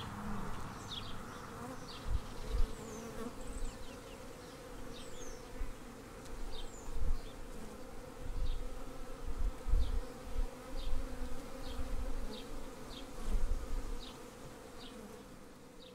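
A cluster of honeybee workers building open comb, buzzing in a steady, dense hum. Short high chirps come every second or so.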